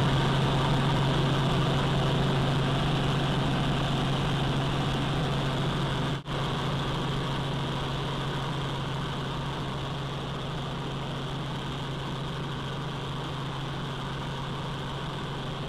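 Helicopter cabin noise: the steady drone of the engine and rotor, with a strong low hum, heard from inside the cabin. It drops out for an instant about six seconds in.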